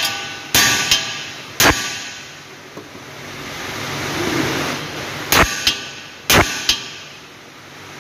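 Hammer blows on a car's steel steering knuckle, metal on metal with a ringing clang, knocking a seized lower ball joint loose. A few strikes come in the first two seconds, then after a pause two more pairs between about five and seven seconds.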